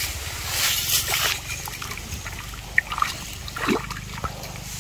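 Hands working in a muddy, water-filled hole: wet mud and water sloshing and splashing, with a few short sharp splashes around the middle.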